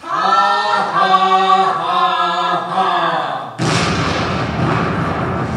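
Singing in long held notes for about three and a half seconds. It is cut off by a sudden loud crash of noise, deep and wide-ranging, that dies away over the next couple of seconds.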